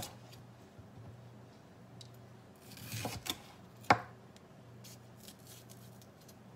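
Dull kitchen knife cutting a green bell pepper on a cutting board: a few crisp slicing cuts and light taps of the blade, with one sharp knock on the board just before four seconds in, the loudest sound.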